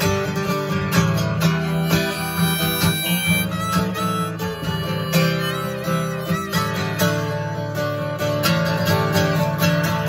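Acoustic guitar strummed in a steady rhythm while a harmonica plays the melody over it.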